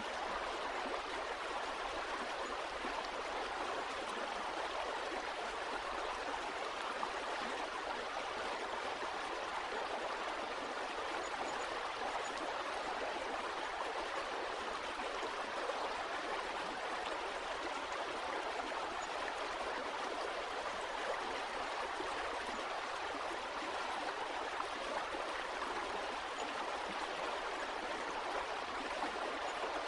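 Flowing water of a stream, a steady, even rush without breaks.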